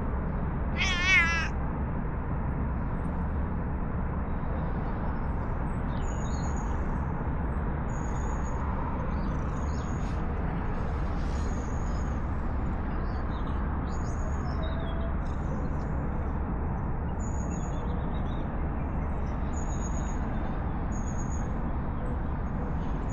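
A cat gives one short meow with a wavering pitch about a second in, over a steady low background rumble.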